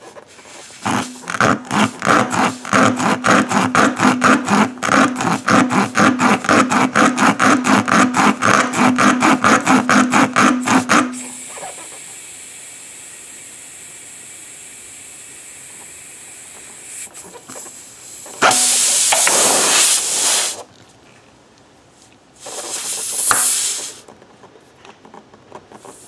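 Steel rasp tool rubbed rapidly in and out of a puncture in a car tire's tread, about four strokes a second for some ten seconds. Then a steady high hiss of air escaping from the tire around the tool, a loud rush of air for about two seconds, and a second, shorter rush near the end.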